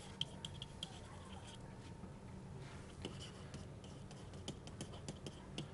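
Faint taps and scratches of a stylus handwriting on a tablet surface: a scattering of light, irregular clicks over a low room hum.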